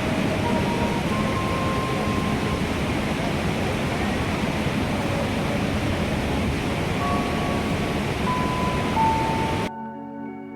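Steady roar of the Iguazu waterfalls, a dense rushing of falling water with no let-up. It cuts off suddenly about a second before the end, and soft music with steady ringing tones takes over.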